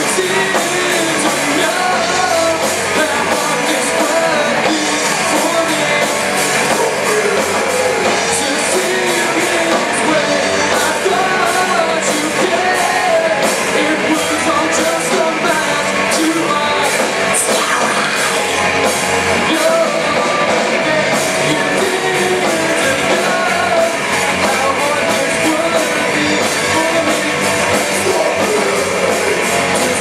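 A rock band playing live at a steady loud level: electric guitars and a drum kit with cymbals, with a singer's vocals over them.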